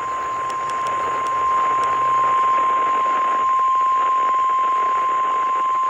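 NOAA Weather Radio warning alarm tone, the 1050 Hz attention signal that precedes a warning broadcast: one steady, unbroken high tone over radio receiver hiss.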